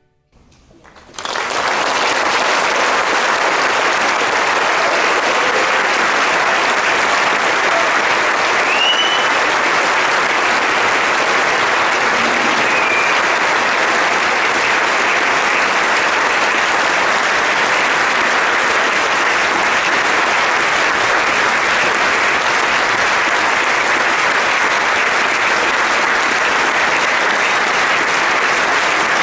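Concert audience applauding, starting about a second in and continuing steadily.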